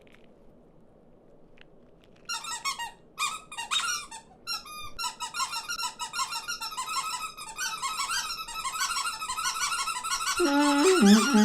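Cartoon small birds chirping and squeaking. It begins as scattered chirps about two seconds in and builds into a dense squabbling chatter. Near the end, lower and louder squawking voices join in.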